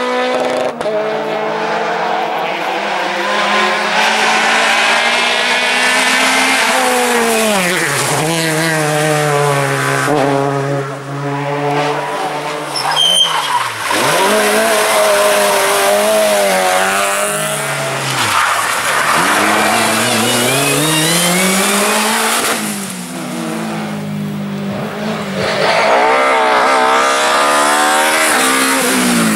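Rally cars taken one after another through a tarmac corner, their engines revving hard, dropping through downshifts under braking and climbing again as they accelerate away. Among them are a Peugeot 208, a Peugeot 106 and a BMW.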